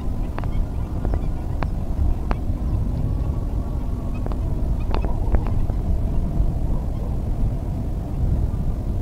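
A steady low rumble, with faint small clicks and rustles scattered through it as hands handle a fish in a mesh net to work the hook free.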